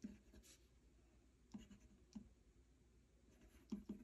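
Pen writing on a paper budget sheet: faint scratching in a few short strokes.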